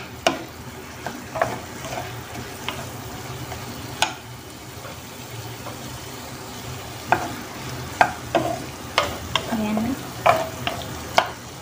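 Wooden spatula stirring chicken and vegetables in a frying pan, scraping and clacking against the pan at irregular moments, over a steady sizzle of sautéing.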